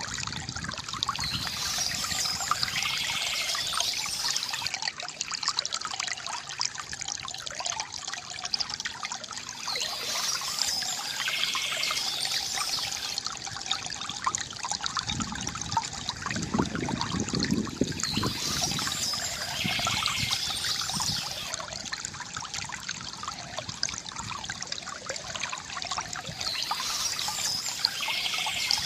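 Water trickling and splashing steadily from a bamboo fountain, with a brighter, hissier swell that comes back about every nine seconds.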